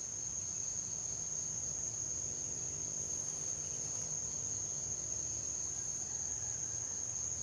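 Insects chirring in one steady, unbroken high-pitched drone, with a low rumble underneath.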